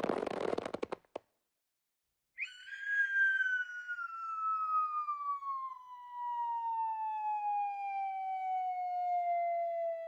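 A rasping, sputtering cartoon sound effect that breaks into a flutter of clicks and cuts off about a second in. After a short silence, a long cartoon falling whistle starts and slides slowly and steadily down in pitch.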